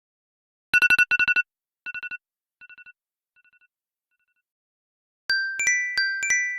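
Apple ringtones playing. First comes a quick electronic trill on two steady tones, repeated in fainter and fainter echoes. After a short gap, about five bright chime notes at different pitches strike and ring on.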